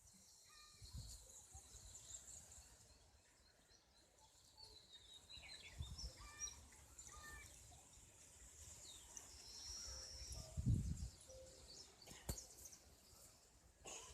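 Faint rural outdoor ambience with birds calling in short chirps, and a few brief low rumbles, the loudest about eleven seconds in.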